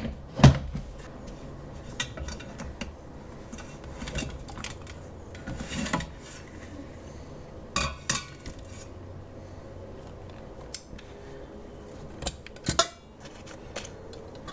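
Stacked stainless steel insert pans and their wire carrying handle clinking and knocking against the pressure cooker's steel inner pot as they are lifted out. The knocks come scattered and irregular, the loudest about half a second in.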